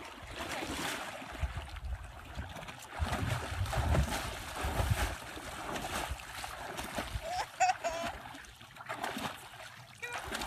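Water splashing and churning as a horse wades through chest-deep pond water with a rider on its back, heaviest around the middle.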